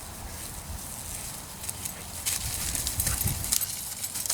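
Footsteps rustling and crunching through dry leaf litter. They grow louder and closer from about two seconds in.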